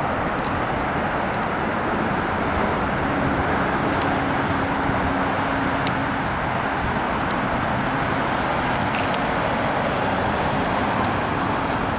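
Steady road traffic noise, an even wash of tyre and engine sound from passing vehicles, with a faint low hum for a few seconds around the middle and a few faint sharp ticks.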